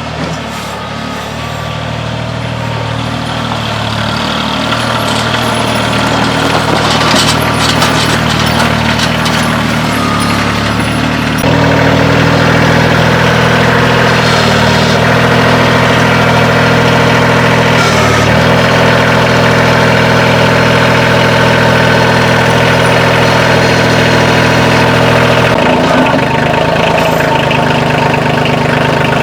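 Kioti CK2610 compact tractor's three-cylinder diesel engine idling steadily while it warms up after a cold start; the engine note grows louder about a third of the way in.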